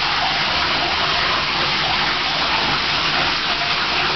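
Steady rush of running water, an even hiss that does not change.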